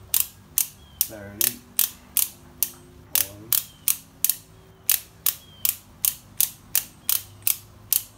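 Socket ratchet clicking in an even rhythm, about three sharp clicks a second, as the rear axle nut of a Harley-Davidson is tightened toward 60 foot-pounds.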